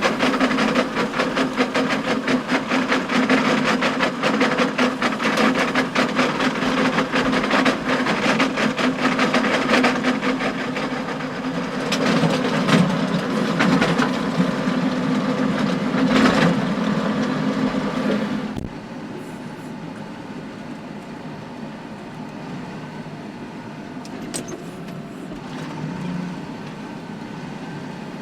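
John Deere tractor running a power harrow through wet, stony ground: a steady engine drone under a dense, rapid clatter of stones knocking on the harrow's tines. About two-thirds of the way through, the clatter stops abruptly, leaving a quieter, steady engine drone.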